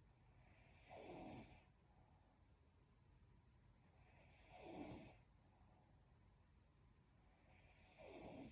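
A young woman snoring in her sleep: three quiet snores, each falling in pitch, about three and a half seconds apart.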